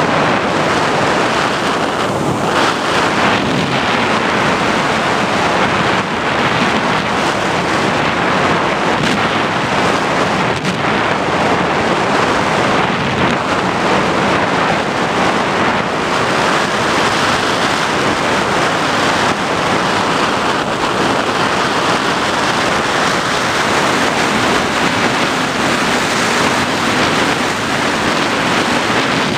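Steady, loud rush of airflow over the onboard microphone of an FPV aircraft in flight.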